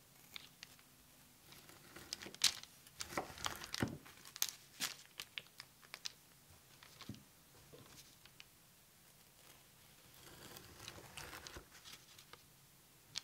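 Quiet crinkling, crunching and clicking of food being handled, with a cluster of sharp ticks a couple of seconds in and a softer stretch of rustling near the end.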